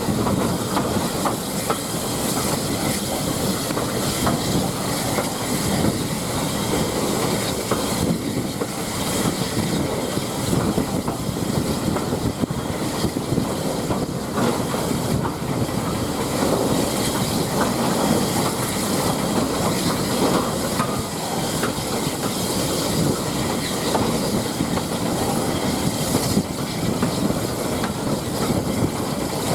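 Steady rumble and rattle of a steam-hauled passenger train's carriage running along the track, heard from aboard.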